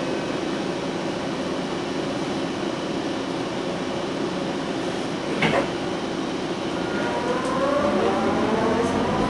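Interior of an ICTS Mark I rapid-transit car: a steady ventilation hum while standing, with a short clunk about five and a half seconds in. From about seven seconds in, the linear induction motor drive starts a whine of several tones that rises steadily in pitch as the car pulls away.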